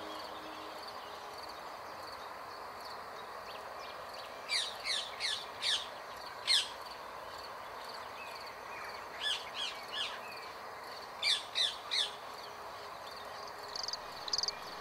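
Rose-ringed parakeets giving short, shrill screeches that drop in pitch, in quick runs of three to five calls, over a steady background hum.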